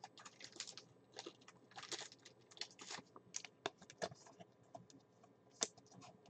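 Faint, irregular light clicks and ticks, a dozen or so scattered over the first four and a half seconds, with one more near the end.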